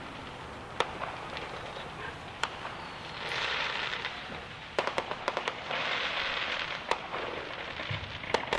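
Scattered sharp pops, with a quick run of them about five seconds in, between two swells of hissing.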